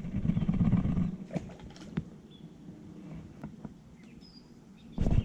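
Dog growling low and rough for about a second, then a few sharp clicks and a short loud thump near the end.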